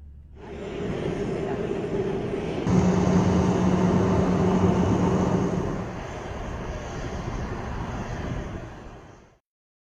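Jet airliner engines running: a loud rushing noise with a steady hum that grows louder about three seconds in, eases a few seconds later and cuts off suddenly near the end.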